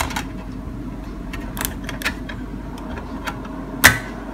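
Small plastic clicks of a DVD-RW disc being pressed down onto the spindle hub of a laptop's slim optical-drive tray, with one sharp snap a little before the end as the disc seats on the hub. A steady low hum runs underneath.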